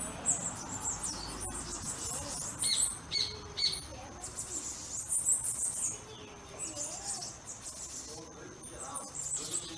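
Birds chirping: many short, high calls in quick clusters, busiest a few seconds in.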